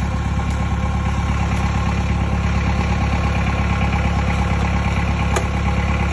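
Forklift engine idling and running steadily, with an even low pulse. A single sharp click sounds about five seconds in.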